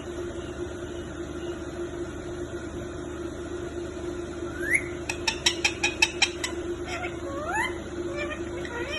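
Pet parrot giving short rising squeaks, with a quick run of about ten sharp clicks in the middle, over a steady low hum.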